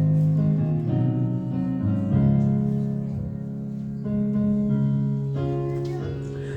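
Keyboard playing slow, held chords that change every second or two.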